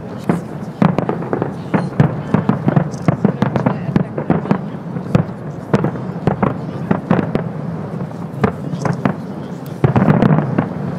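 Fireworks display going off: a rapid, irregular run of bangs and crackling bursts, several a second, with the sound growing denser near the end.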